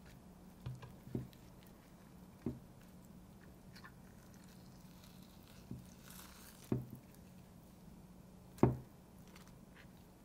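Boiled beef tongue being skinned by hand: soft, wet squishing and peeling as the skin is pulled away from the meat. There are about six short, soft thumps as the tongue shifts in the clay dish, the loudest near the end, over a faint steady hum.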